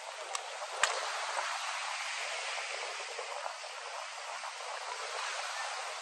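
Steady outdoor background hiss, with two light clicks near the start from shellfish shells being handled at the table.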